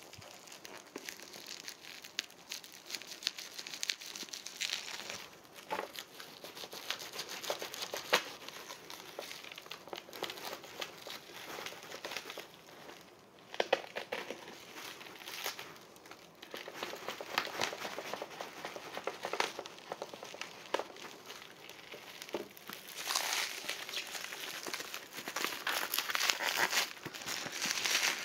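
Bubble wrap crinkling and rustling as a taped package is unwrapped by hand, with irregular crackles, louder near the end.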